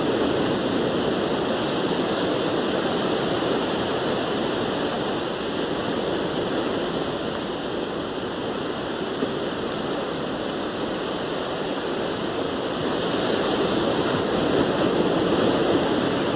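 Sea surf washing onto a beach, a steady rushing wash that swells a little near the end.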